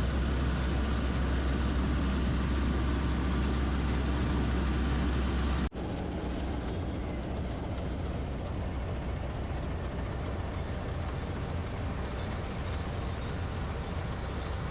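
PREET 4949 Maestro combine harvester running steadily with a deep engine rumble. About six seconds in the sound cuts out for an instant, and then the machine continues a little quieter with less low rumble.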